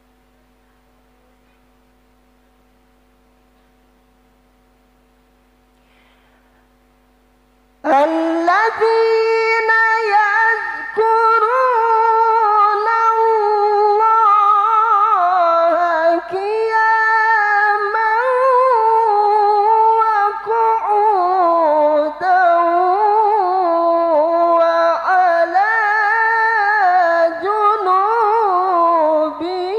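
Young qori's Quran recitation (tilawah), amplified through a handheld microphone, in a high, melodious voice with long held, ornamented notes. It starts about eight seconds in, after a quiet pause that holds only a faint steady hum.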